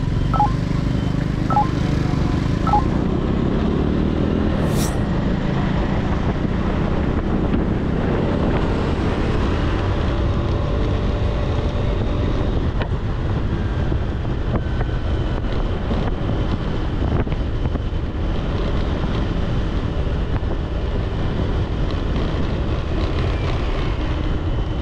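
Steady wind rush buffeting the microphone on a moving motorbike, mixed with engine and road traffic noise. A few short faint beeps sound in the first three seconds.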